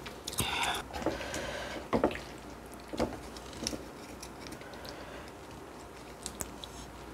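Close-miked eating of spicy stir-fried noodles and kimchi: a brief noisy bite near the start, then quieter chewing with a few sharp clicks of utensils against a dish.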